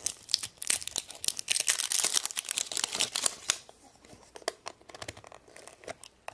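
Plastic wrapper crinkling and tearing as it is peeled off a plastic Angry Birds surprise egg, dense for about three and a half seconds, then sparser crackles as the egg is handled.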